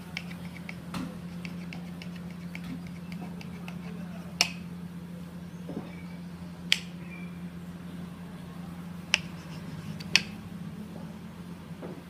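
Kitchen knife cutting through a loaf of white bread, with light ticks from the blade and crust, then four sharp knocks as the blade hits the cutting board. A steady low hum runs underneath.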